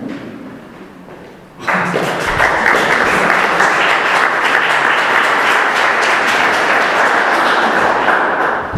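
Audience applauding: the clapping starts about a second and a half in, goes on steadily, and stops just as the next speaker begins.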